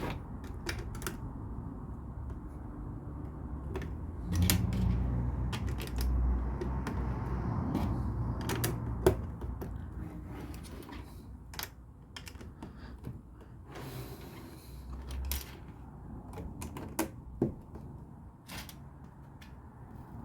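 LEGO plastic pieces being handled and pressed together: scattered sharp clicks and taps, with a duller low rumble of handling between about four and ten seconds in.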